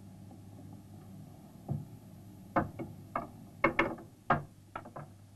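A low steady mechanical hum, then from about two seconds in a run of about ten irregular sharp clicks and knocks, like a mechanism being worked.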